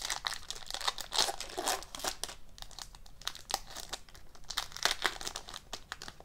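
Foil trading-card pack wrapper being torn open and crinkled in the hands as the cards are slid out. A dense, crackling rustle with the loudest crinkles about a second in and again about five seconds in.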